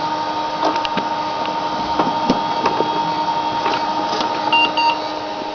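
Failing Western Digital Protégé WD200 IDE hard drive running with a steady whirr and irregular clicks and squeaks, the odd noises of a drive that has died. Two short beeps come about four and a half seconds in.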